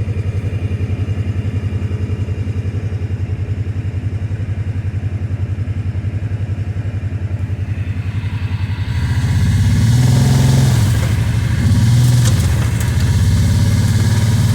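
Kawasaki Teryx 800 side-by-side's engine idling steadily, then revved up about two-thirds of the way in, rising and falling a few times.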